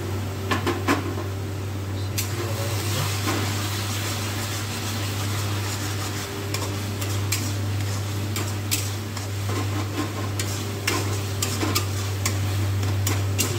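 Metal spatula stirring and scraping masala paste frying in a kadai: a steady sizzle with many sharp clinks of metal on metal, coming more often in the second half, over a steady low hum.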